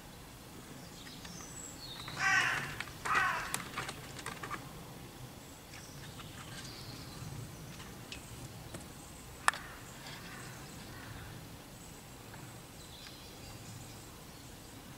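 A crow cawing twice in quick succession about two seconds in, with faint high bird chirps now and then. A single sharp click about nine and a half seconds in.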